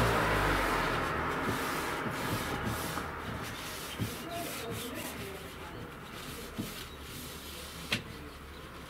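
Brush strokes rubbing wood impregnant into an old wooden window frame, with a few light knocks. A passing vehicle fades out in the first second.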